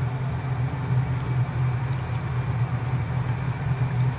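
Steady low hum of a kitchen appliance's fan running, with a wok of beef and cassava in coconut milk simmering under it.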